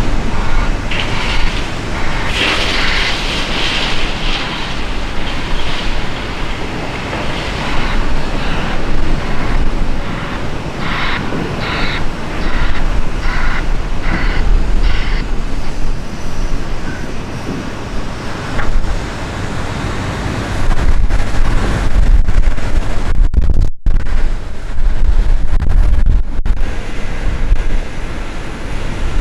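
Heavy diesel machinery working a sugar beet pile: Volvo L180H wheel loaders and tipping trucks running, with repeated short rattling in the first half. Strong wind buffets the microphone, heaviest in the later part.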